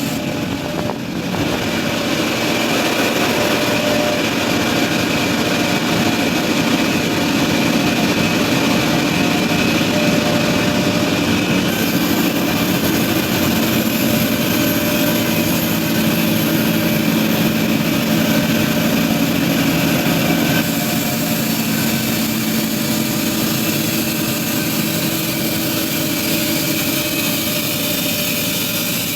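Wood-processing machinery running continuously: a steady engine drone with a constant hum over broad mechanical noise.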